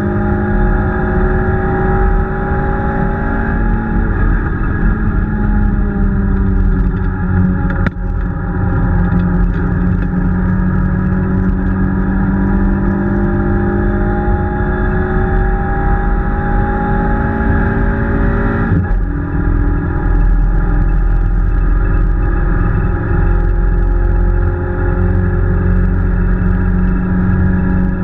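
Peugeot 205 rally car's engine heard from inside the cabin, running hard over a constant low road rumble. Its pitch climbs slowly, sags for a few seconds around five to eight seconds in, climbs again, and breaks off sharply for a moment about nineteen seconds in before carrying on.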